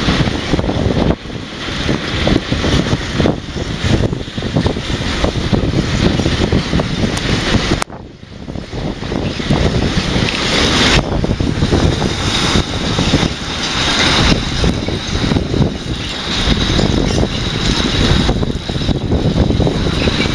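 Freight train of hooded wagons rolling over a railway bridge, its wheels clattering on the rails, heavily mixed with wind buffeting the microphone. The level dips suddenly for a moment about eight seconds in.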